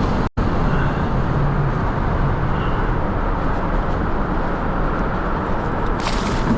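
Steady, loud wind rumble on the camera microphone, with a brief break about a third of a second in and a few short crackles near the end.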